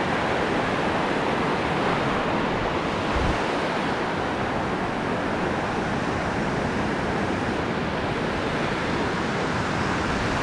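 Ocean surf washing in over the sand of the shallows, a steady rush of water.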